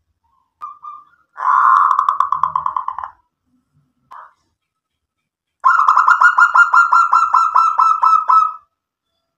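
Zebra dove (perkutut) calling: a short note, then two runs of rapid staccato coos, several notes a second, the second run about three seconds long, with a single short note between them.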